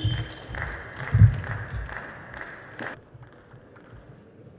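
Table tennis rally: sharp clicks of the celluloid-type ball off bats and table, with low thumps of the players' feet on the court floor. The rally ends about three seconds in, leaving a quiet hall.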